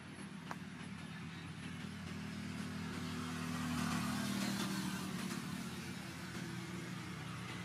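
A motor vehicle's engine passing by: a low engine hum with road noise that swells to its loudest about halfway through and then fades.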